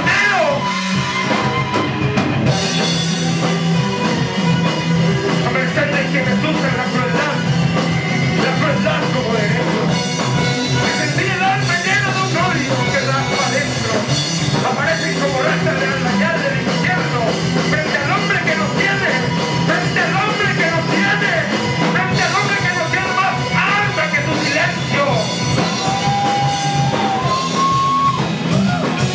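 Live instrumental rock: electric guitar and drum kit playing a dense, steady passage, with gliding high notes near the end.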